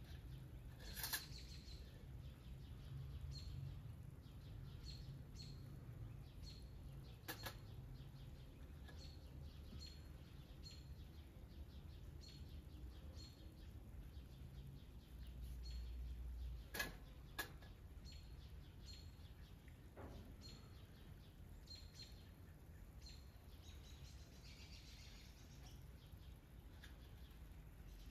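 Faint, repeated short chirps of small birds, with a few sharp light clinks of a metal spoon against small spice bowls over a low background rumble.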